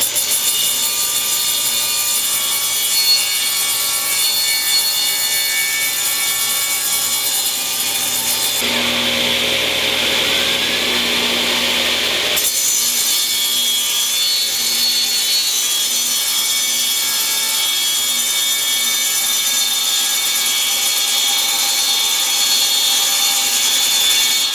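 Table saw running with its tilted blade cutting V-grooves into a spinning pine pulley blank, turned on a shaft by an electric drill: a steady grinding cut of blade in wood over the motors' hum. The tone of the cut shifts twice, around 9 and 12 seconds in.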